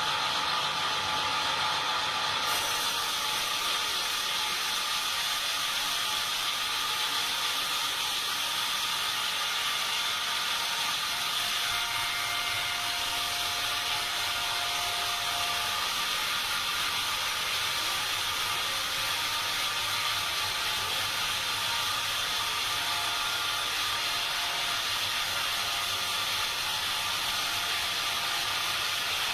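Sawmill saw running steadily while cutting timber: a constant mechanical noise with a few steady whining tones and no pauses.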